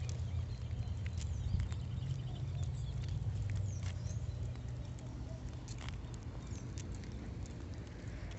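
Two leashed dogs walking on a concrete sidewalk: scattered light clicks and taps of paws and claws at an irregular pace, over a steady low rumble.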